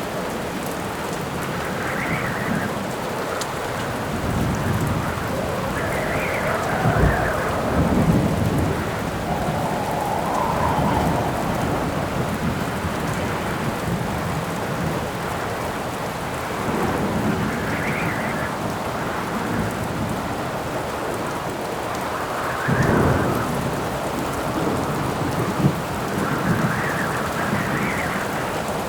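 Steady rain with gusts of howling wind that swell and fade every few seconds, and low rumbles of thunder, heaviest a few seconds in and again past the middle.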